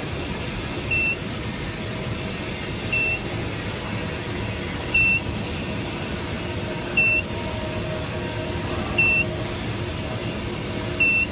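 A short, high electronic beep repeating evenly about every two seconds over a steady whirring machine noise.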